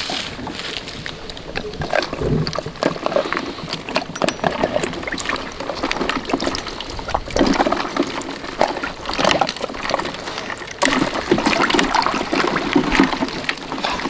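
Water splashing and sloshing with irregular knocks of broken ice chunks as a livestock guardian dog plays with the ice in a stock tank.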